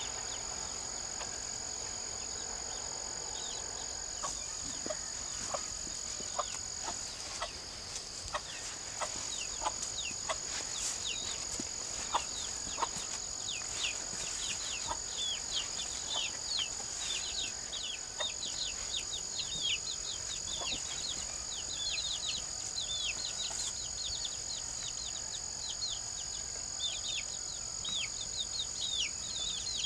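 Chickens clucking and chicks peeping in many short falling chirps, thickening about a quarter of the way in, over a steady high insect drone.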